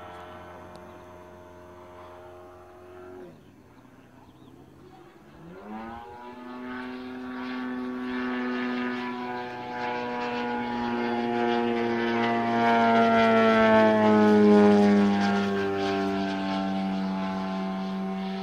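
Engine and propeller of a giant-scale Extra 330SC aerobatic model plane in flight: throttled back about three seconds in, then opened up again with a rising pitch a couple of seconds later. It grows louder and is loudest late on, its pitch sagging slightly as it passes.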